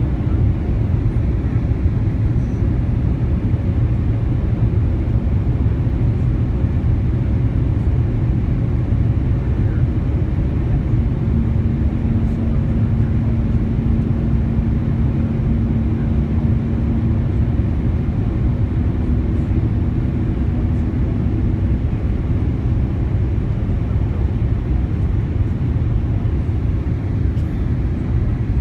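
Steady low rumble of a Boeing 787-8 in flight, engine and airflow noise heard inside the passenger cabin. A faint steady hum comes in for a while in the middle.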